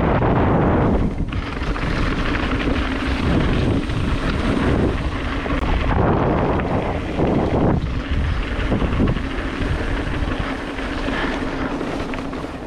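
Wind buffeting a helmet- or bike-mounted action camera's microphone, mixed with the rattle and rumble of a mountain bike's tyres and frame rolling fast over a rough, wet trail. The noise is steady and loud, swelling and easing slightly as the bike speeds up and slows.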